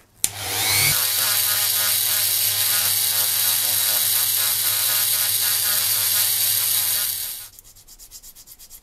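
Handheld rotary tool clicked on, spinning up to a steady whine as its small bit grinds against a thin frame part. About seven and a half seconds in it is switched off and runs down with a fast, fading ticking.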